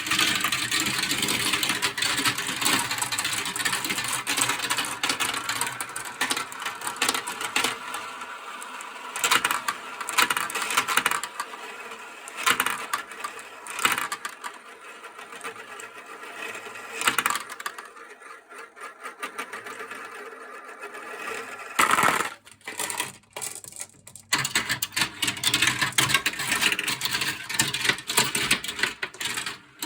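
Many glass marbles rolling and clattering down a toy marble run slope, a continuous rattle full of sharp clicks. It thins out in the middle, breaks into a few separate knocks around two-thirds of the way in, then builds back to a dense rattle near the end.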